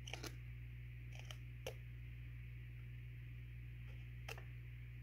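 A few faint, light clicks of a hot soldering iron tip poking holes through a thin clear plastic cup lid, over a steady low hum.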